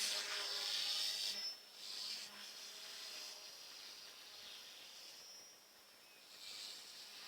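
Goosky S1 Legend RC helicopter in flight: a steady high-pitched whine from its motors and rotors, swelling and fading as it moves about, loudest in the first second or so.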